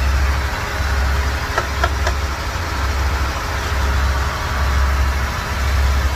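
A boat's engine runs with a steady low rumble under a hiss of wind and water. Three light clinks of glass come close together about two seconds in.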